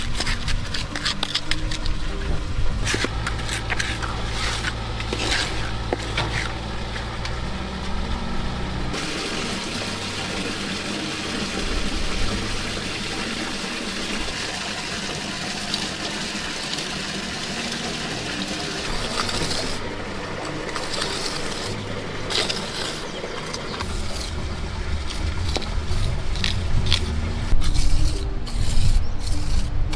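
Steel trowel scraping and smoothing wet concrete inside a wooden form, in repeated short strokes, over a steady low machine hum.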